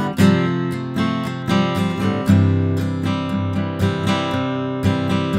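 A 1950s Martin D-28 dreadnought acoustic guitar with Brazilian rosewood back and sides, played solo as a steady run of strummed and picked chords with ringing sustain.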